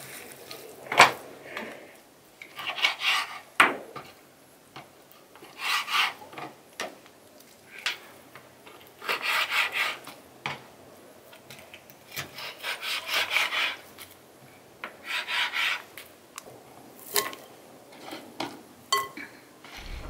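Knife cutting raw lamb on a wooden chopping board: several bursts of short scraping strokes, with a few sharp knocks of the blade on the wood.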